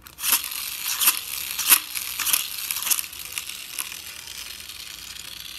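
Hard plastic parts of a toy motorbike clicking and rattling as they are handled and fitted together, with about five sharp clicks over the first three seconds, then only a faint steady noise.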